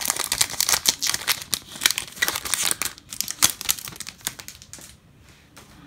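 Wrapper of a Topps Holiday baseball card pack crinkling and tearing as it is ripped open by hand, a dense crackle that dies down about four and a half seconds in.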